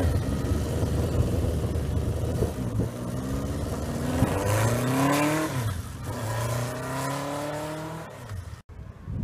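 1976 Honda CB400 Four's air-cooled inline-four accelerating away, revving up through the gears: three rising runs in pitch, each cut off by an upshift, the sound growing fainter as the bike pulls away.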